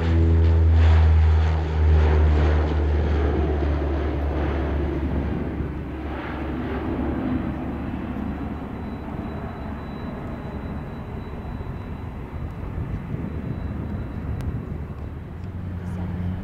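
De Havilland Canada DHC-8-102 Dash 8 lifting off at takeoff power: a loud, low propeller drone from its twin Pratt & Whitney Canada PW120A turboprops, fading steadily over the first several seconds as it climbs away. Near the end the low hum of another turboprop on the runway comes up.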